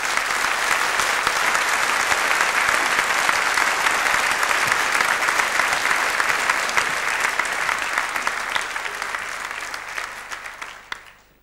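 A large concert audience applauding to greet the soloist, with a dense, steady clatter of many hands clapping that thins out and stops near the end.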